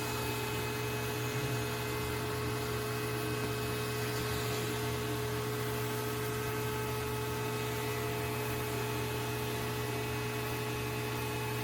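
Oneisall LM2 pet grooming vacuum running steadily: an even motor hum with several steady whining tones that keep the same pitch.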